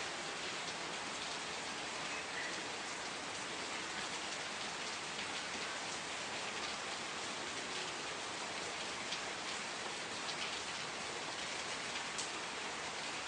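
Steady rain falling, a continuous hiss with many small drops pattering on a surface.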